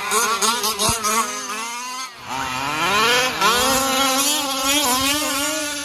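Two-stroke petrol engines of 1/5-scale RC trucks revving up and down as they are driven, with a brief throttle lift about two seconds in and then a long climb in revs.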